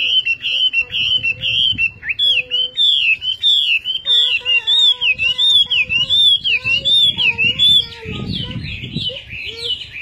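Chinese hwamei (Garrulax canorus) singing: a fast, loud run of sliding whistled notes, several a second, each sweeping up or down. About eight seconds in the song turns softer and more jumbled.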